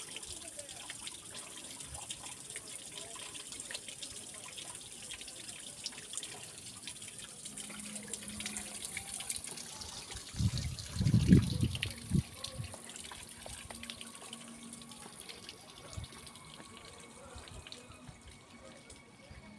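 Water from a wall fountain's spout splashing into a stone basin, a steady hiss that fades out over the second half. About halfway through comes a loud low rumble lasting a couple of seconds.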